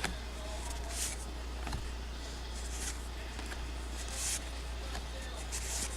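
Trading cards sliding against one another as a stack is flipped through by hand: a few faint, brief swishes about a second or so apart, over a low steady hum.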